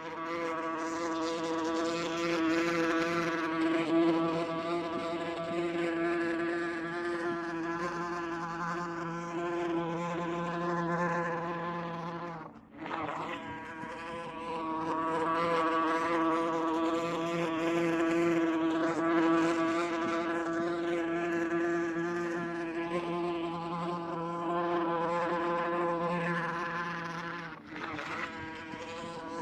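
A wasp buzzing in flight: a steady, strongly pitched wingbeat buzz that fades and returns briefly twice, about twelve seconds in and again near the end.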